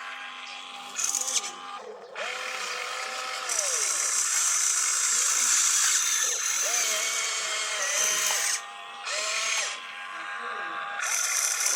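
Small electric motors and gearboxes of a radio-controlled construction vehicle whining in several short runs, each rising in pitch as it starts, holding, then falling away as it stops.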